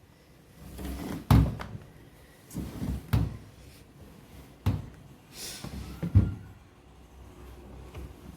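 Wet clothes being taken out of a front-loading washing machine after its spin cycle: about four dull knocks and thuds of the door and drum, with a brief rustle of fabric.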